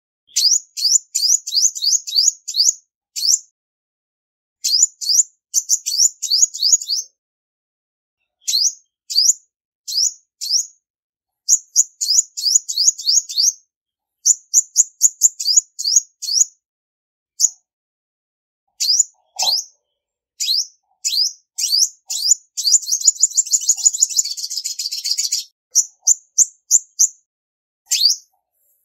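Female olive-backed sunbird calling: sharp high chirps, each a quick downward sweep, given in rapid runs of several notes separated by short pauses. About three-quarters of the way through the notes run together into a fast trill for a few seconds.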